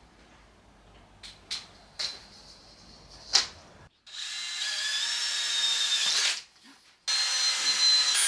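Power drill running in two spurts of about two seconds each, a little past halfway and again near the end, with a steady high whine. A few sharp clicks come before it.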